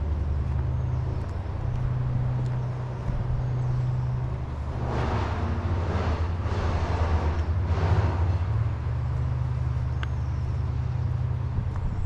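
Street traffic: a motor vehicle's engine running steadily, with a louder rush of noise from about five to eight and a half seconds in.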